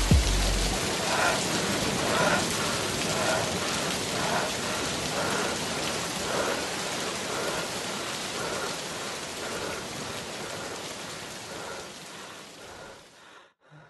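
Rain ambience at the end of a rap track: a steady hiss of rain with faint muffled pulses about once a second, fading out near the end. A last deep bass note dies away in the first second.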